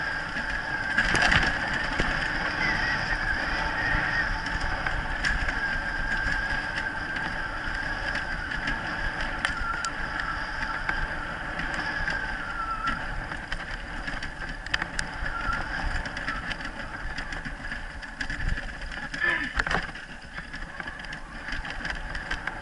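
Wheeled dryland dog-sled rig rolling along a dirt trail behind a running husky team: steady rolling noise with a faint wavering whine and scattered clicks and knocks from the ground.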